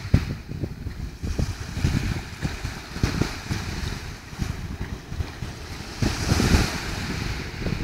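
Small waves washing up on a pebble beach, one swelling in louder about six seconds in, with wind buffeting the microphone throughout.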